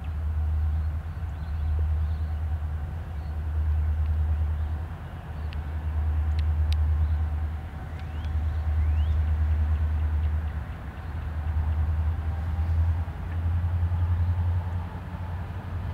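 Diesel-electric freight locomotives working as a train pulls out, a deep engine rumble that swells and fades every two to three seconds.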